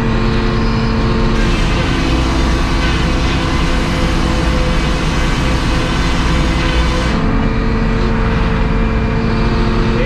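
Circular sawmill head saw ripping a 2-inch board off a squared log. The hiss of the cut starts about a second and a half in and stops about seven seconds in, over the steady drone of the mill's engine.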